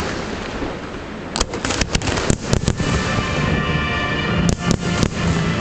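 Fireworks display going off: rapid runs of sharp bangs over a steady rumble and hiss, one run about a second and a half in and another near the end.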